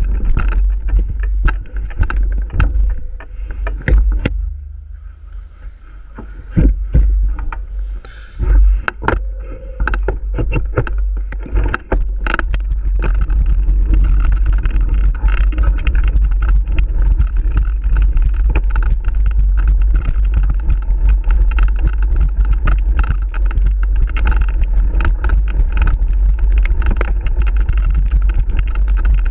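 Mountain bike ridden along a dirt trail: wind buffeting the camera's microphone, with rattles and knocks from the bike over bumps. It goes quieter for a moment about five seconds in, then runs loud and steady from about twelve seconds on as the speed picks up.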